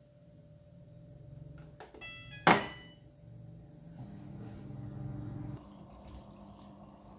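Front-loading washing machine starting up: a short electronic beep and one sharp, loud click about two and a half seconds in, then a steady low hum from about four seconds as the machine begins to take in water.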